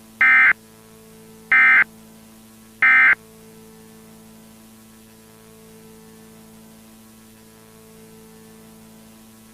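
Three short bursts of EAS SAME digital data tones, each about a third of a second and about 1.3 s apart: the end-of-message signal that closes an Emergency Alert System broadcast. A faint steady hum follows.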